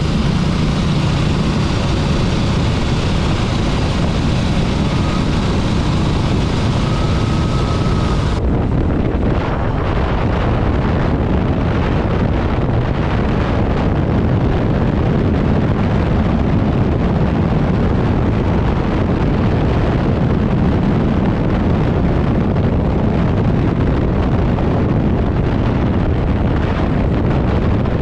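Honda CB400SS's single-cylinder engine running under way, with heavy wind noise on the microphone.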